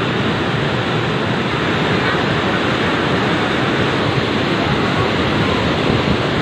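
Fast, muddy river floodwater rushing and churning, a loud steady rush of water.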